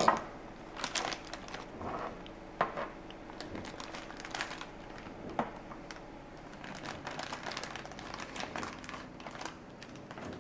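Clear plastic bag crinkling and rustling in small hands as it is handled and opened, with scattered light clicks. A sharp knock right at the start is the loudest sound.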